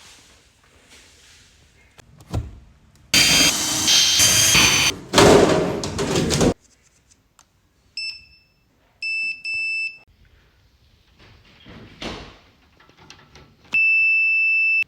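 A thump and a loud noisy rush lasting about three seconds, then a microwave's electronic beeper: one short beep, two more beeps, and a long beep of about a second near the end.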